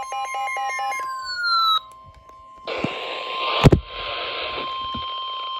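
Emergency Alert System attention tone, one steady single-pitch electronic tone held throughout, signalling a severe thunderstorm warning. Over it come quick electronic beeps and falling tones in the first two seconds, then a hiss of static from about three seconds in with a sharp thump near the middle.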